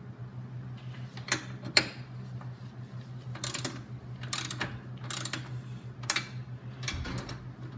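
Hand socket ratchet clicking in short runs as it is swung back and forth, tightening the hitch frame's U-bolt nuts. A steady low hum runs underneath.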